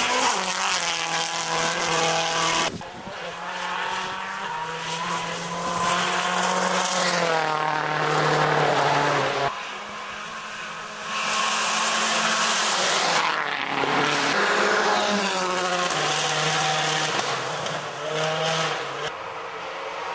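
Rally cars going flat out on a gravel special stage, engines revving up hard and dropping back at each gear change, several times over in short cut-together passes.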